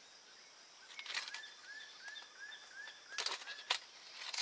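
Small metallic clicks of a split key ring being worked onto the end hole of a bow saw blade, about a second in and twice around three seconds in. Behind them a bird repeats a short arched chirp about three times a second for a couple of seconds.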